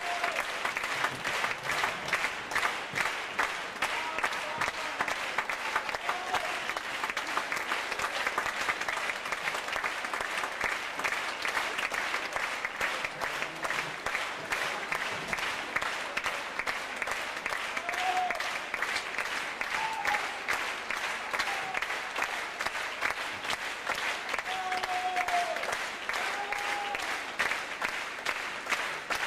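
Theatre audience applauding steadily, a dense unbroken clatter of clapping, with a few short voices calling out over it now and then.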